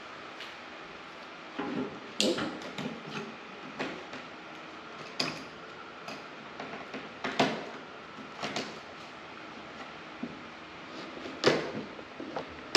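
Irregular knocks, taps and clatter from HVAC parts being handled and fitted by hand, with a few sharper knocks standing out.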